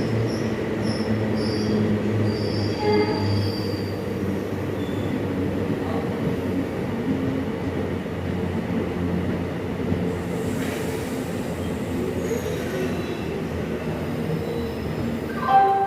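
Train moving along the rails at a station: a steady rumble of wheels and cars, with short high wheel squeals in the first few seconds.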